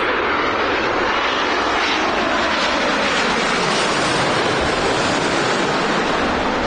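Qatar Airways jet airliner's engines, a loud, steady rushing noise that holds throughout.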